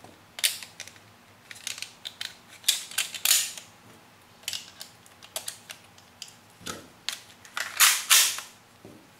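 Clicks and scrapes of a Tokyo Marui Glock 18C gas blowback airsoft pistol's parts being handled and reassembled. Near the end the slide is slid onto the frame, making the loudest scraping sounds.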